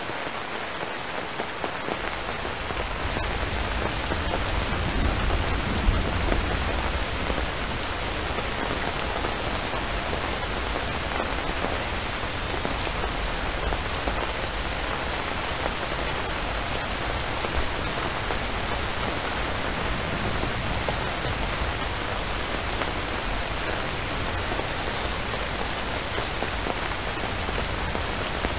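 Steady rainfall. A low rumble comes in underneath about two seconds in, swells around five to six seconds in, then carries on more faintly.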